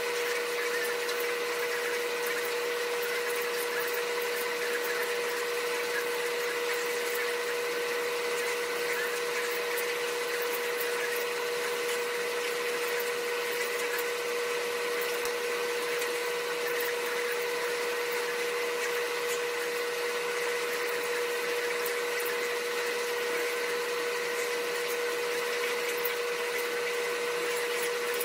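A machine running steadily: an even whir with a constant whining tone in it.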